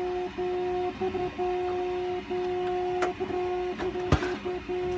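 3D printer running, its stepper motors giving a steady two-note whine that stops and restarts every half second or so as the print head moves. Two knocks of hard printed plastic parts being handled cut in, the louder one about four seconds in.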